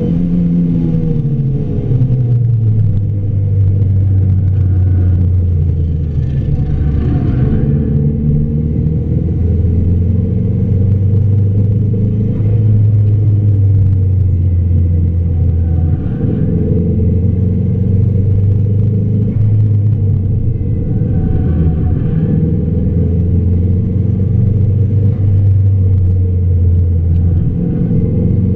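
A car's engine and road noise heard from inside the cabin while lapping a track at speed: a loud, steady low drone. The engine note falls in pitch over the first couple of seconds, then holds nearly steady.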